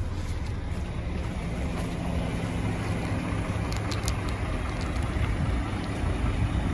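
Diesel engine of a 2008 Scania Irizar coach idling with a steady low rumble.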